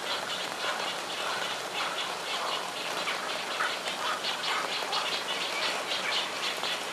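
Chorus of many frogs calling at once, a dense mass of short overlapping pulsed calls.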